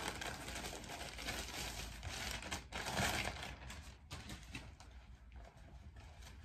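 Plastic mail-order packaging crinkling and rustling as a pair of jeans is pulled out and unfolded, busiest in the first three seconds or so, then softer handling of the cloth.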